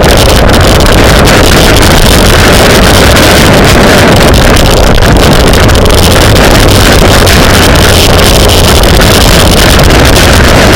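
Steady, very loud wind noise buffeting a microphone moving at riding speed during a bicycle race, with no break or change.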